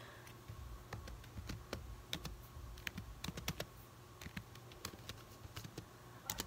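Faint, irregular clicks and taps of laptop keys being pressed, in quick scattered runs.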